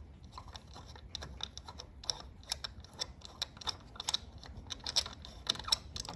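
Light, irregular metal clicks and taps from a ratchet, extension and spark plug socket working a spark plug loose from a Honda CRF250L's cylinder head, several clicks a second.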